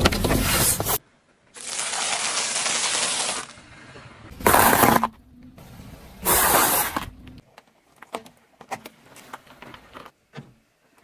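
A car tyre crushing objects on asphalt: several separate loud bursts of crunching and popping, each about a second long, a steady hiss between the first two, then scattered small crackles.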